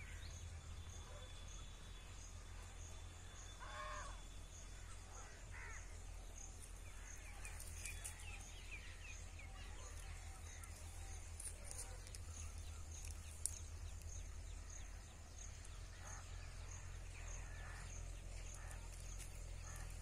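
Faint outdoor ambience over a steady low rumble. A few distant bird calls sound now and then, and a faint high chirp repeats about every two-thirds of a second. The feeding butterfly itself makes no sound.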